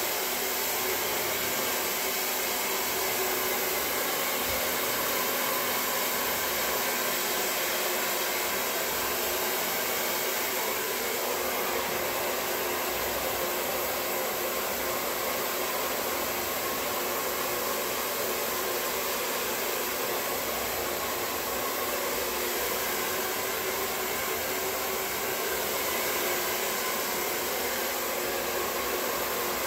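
Handheld hair dryer blowing steadily as it dries damp hair.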